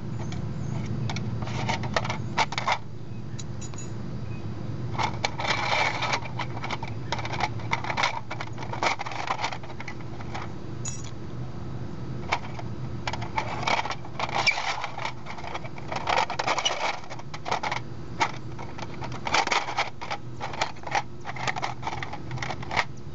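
Titanium tent stakes clinking and scraping as they are pushed through the holes of a thin metal stove windscreen, with the sheet crinkling in the hands: irregular small metallic clicks and rustles, busiest in short spells. A steady low hum runs underneath.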